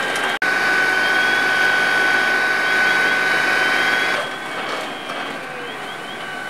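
Fire engine pump running with a steady high whine over a loud hiss. There is a brief dropout just under half a second in, and about four seconds in the whine stops and the noise drops.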